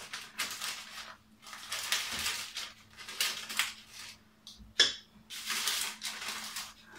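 Parchment-paper piping bag crinkling and rustling in irregular bursts as it is handled and filled, with one sharp click about five seconds in.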